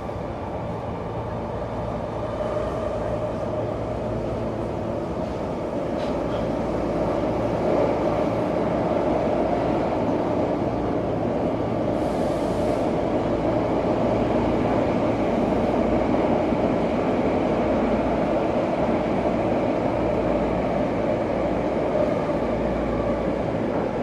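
Tokyo subway train running between stations, heard from inside the carriage: a steady rumble and rail noise that grows louder over the first eight seconds, with a brief high hiss about twelve seconds in.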